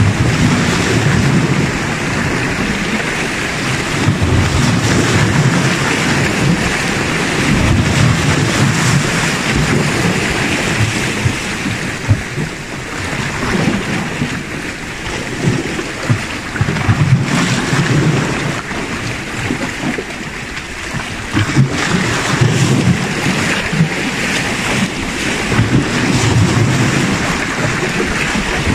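Small sea waves washing and splashing against shoreline rocks, with wind buffeting the microphone in uneven low gusts.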